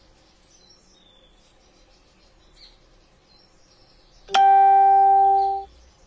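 A single loud, steady beep of one held pitch, starting suddenly about four seconds in and lasting about a second and a half before cutting off.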